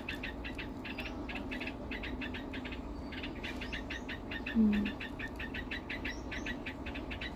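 Birds chirping in a fast, steady run of high chirps, about ten a second, over a low steady hum. A short, louder low call sounds about four and a half seconds in.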